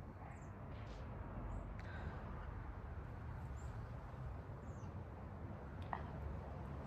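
Faint low background rumble with a few brief, high-pitched chirps spaced a second or so apart, and a single sharp click about six seconds in.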